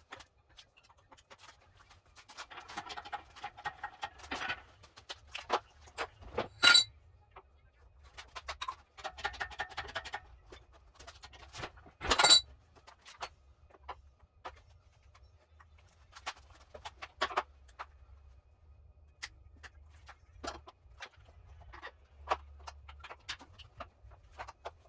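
Metal tools and engine parts clinking and rattling, with two louder ringing metal clanks, one about a third of the way in and one about halfway.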